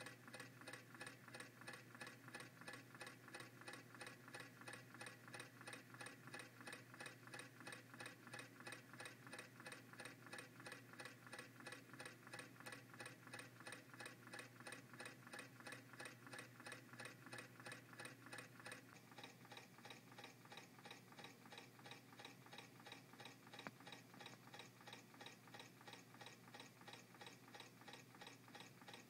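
MM-5 Stirling engine running steadily on a cup of hot water, its mechanism giving a faint, fast, even ticking with each turn of the flywheel-propeller. About two-thirds of the way through, the ticking turns softer and duller.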